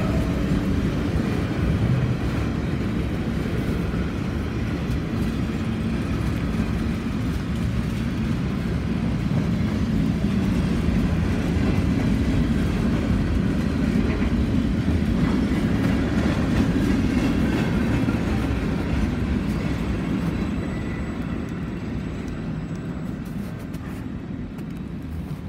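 Freight train's covered hopper cars rolling past close by: a steady rumble of steel wheels on rail. The sound fades over the last few seconds as the train moves away.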